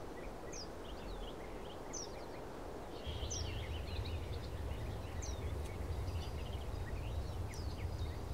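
Outdoor ambience with small birds chirping on and off. About three seconds in, a low steady hum joins the background.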